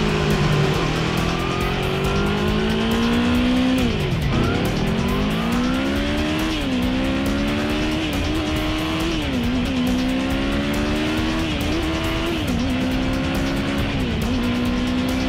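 Yamaha VMAX V4 engine revving hard. Its pitch drops sharply about four seconds in, then climbs again in a series of rising steps with brief dips between them, like a motorcycle pulling up through the gears.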